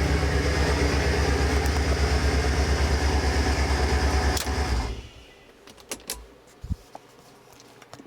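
2001 Chrysler PT Cruiser's four-cylinder engine running with a fast, even low pulsing, the weird noise from the accessory belt area, which the owner suspects is the power steering pump, idler pulley or A/C compressor. It cuts off suddenly about five seconds in, followed by a few faint knocks.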